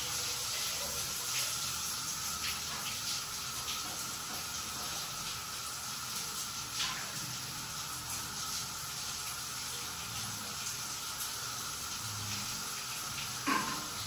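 Steady background hiss with a faint steady tone through it, a few faint ticks, and a short sharper knock near the end.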